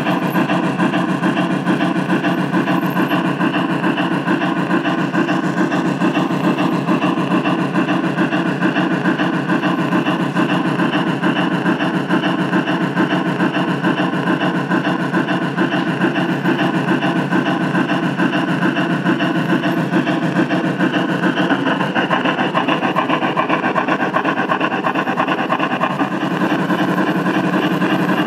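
Gauge 1 model BR 44 steam locomotive running steadily along the track: a continuous mechanical running sound with a fast, even pulsing and a steady hum.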